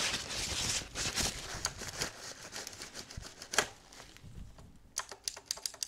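Plastic clicks and rustling as a large keycap with stabilizer brackets is handled and pressed onto a Razer BlackWidow Ultimate mechanical keyboard, ending in a quick run of key clicks.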